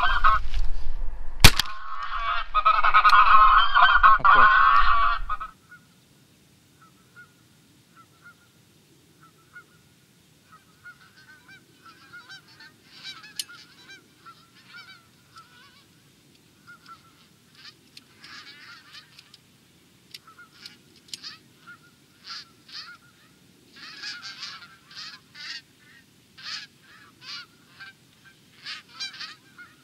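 A flock of geese honking: loud and close over a low wind rumble for the first five seconds, with a sharp click about a second and a half in, then distant honks that come thicker and louder toward the end as the flock flies nearer.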